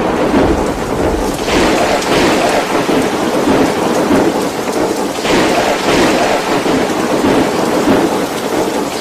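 Violent storm: heavy rain and wind making a steady rushing noise, swelling about a second and a half in and again about five seconds in.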